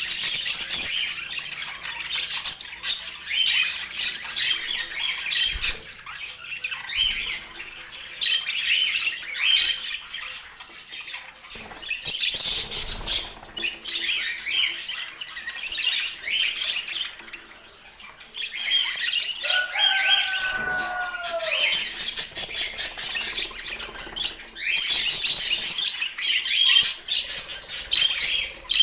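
Budgerigars chattering: continuous fast chirps and squawks, with one lower, falling call about two-thirds of the way through.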